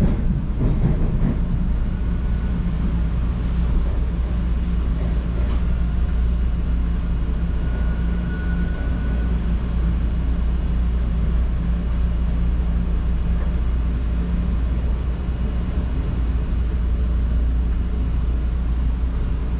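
Toronto subway train running at a steady pace, a continuous low rumble with a faint brief whine about eight seconds in.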